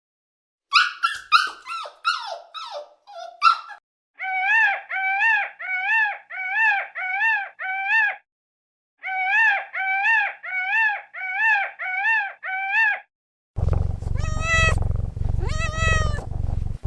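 A series of animal calls. First comes a flurry of quick high squeaks. Then there are two runs of evenly repeated yelping calls, about two a second, and near the end lower drawn-out calls over a low rumble.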